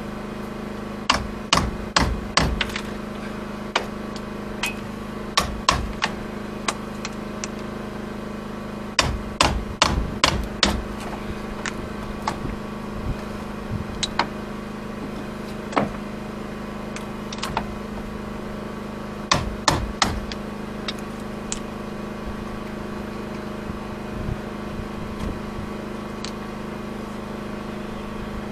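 Hammer blows on a chisel driven into the wooden hull planking of an old boat to knock the planks out: sharp strikes in irregular bursts of several blows with pauses between. A steady low hum runs underneath.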